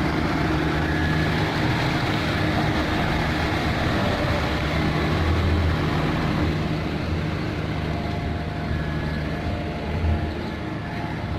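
Heavy diesel engine running steadily at a constant speed: a low, even drone.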